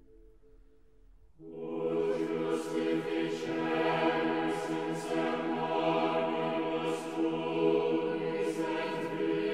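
Background music: a faint held chord fades away, then about a second and a half in slow choral music enters, with long sustained voices.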